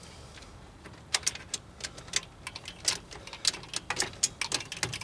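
Ratchet wrench clicking in quick irregular runs as a wheel hub mounting bolt is wound in on an extension.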